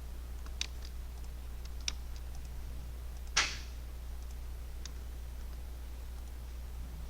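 Several separate clicks of a computer mouse and keyboard, the loudest about three and a half seconds in, over a steady low electrical hum.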